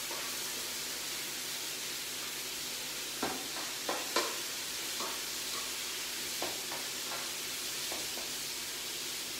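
Lardons, chopped onion and sliced mushrooms sizzling in hot oil in a frying pan, a steady hiss. From about three seconds in, a spatula stirring them knocks and scrapes against the pan several times.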